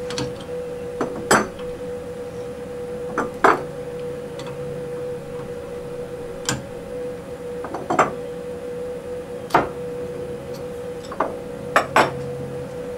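Metal tools and parts being handled while a large router bit is fetched and fitted to the CNC: about a dozen sharp clinks and knocks at irregular intervals, over a steady hum.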